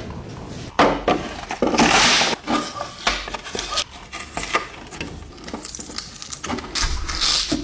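Workshop sounds of metal parts and tools being handled: irregular clinks and knocks, with a stretch of scraping about two seconds in and again near the end.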